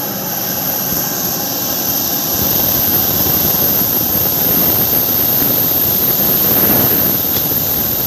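Jet engines of an Airbus A320 airliner running as it comes in to land past, a steady jet noise with a thin high whine, growing somewhat louder a couple of seconds in.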